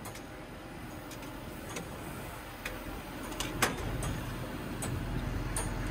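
Carpentry work: scattered sharp knocks and clicks of tools and materials being handled, the loudest a little past halfway, over a steady low rumble.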